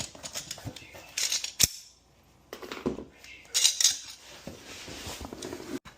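Metal tools and parts clinking and clattering as they are handled, in irregular knocks and rattles with a short lull about two seconds in.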